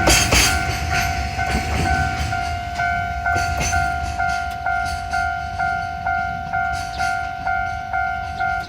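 Japanese level crossing warning bell ringing, a two-tone electronic ding repeating about twice a second, which cuts off at the end. Underneath, a low rumble and sharp wheel clacks over rail joints, mostly in the first few seconds, from the DE70 diesel locomotive passing over the crossing.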